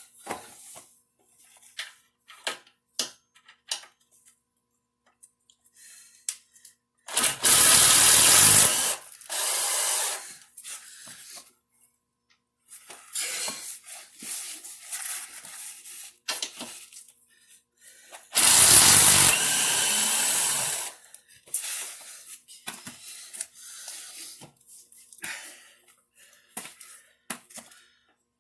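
A handheld power tool spinning a socket runs in loud bursts, twice about seven seconds in and once for about two seconds past the middle, loosening the engine mounting bolts on a mini bike. Between the bursts come short clinks and knocks of tools and metal parts.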